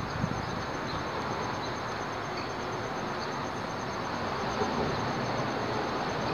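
Steady rumble of highway traffic passing over a bridge overhead.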